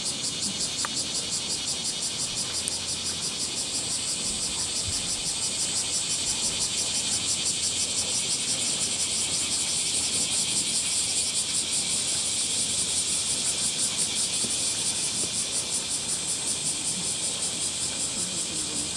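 Cicadas singing in chorus, a dense high buzz that pulses evenly about four to five times a second and swells a little toward the middle.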